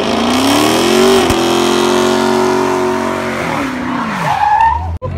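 Car engine revving hard during a burnout, climbing in pitch, held high with the rear tyres spinning and hissing on the road, then dropping off about three and a half seconds in.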